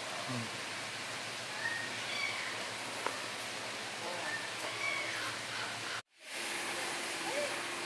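Steady outdoor background hiss with a few faint, short high chirps scattered through it. The sound cuts out for a moment about six seconds in.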